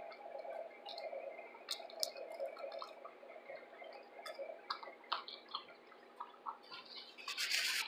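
Quiet, close-up mouth sounds of eating fried shrimp: chewing with scattered small wet clicks and smacks, and fingers being licked. A short breathy rush comes near the end, over a faint steady hum.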